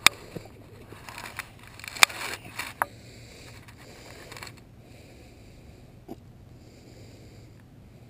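Handling noise as a large grass carp is hoisted up in both hands: rustling with a few sharp knocks in the first three seconds and another about six seconds in, then mostly quiet over a faint low hum.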